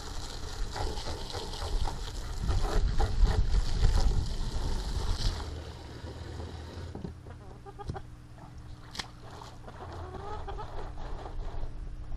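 Water from a garden hose running into the plastic jug of a chicken waterer, a steady splashing hiss that stops about five and a half seconds in. Near the end a chicken starts clucking and calling, agitated after getting loose.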